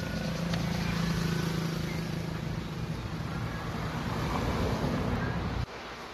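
Road traffic: a motor vehicle running close by, a dense noise with a steady low engine hum. It cuts off suddenly near the end, leaving a quieter background.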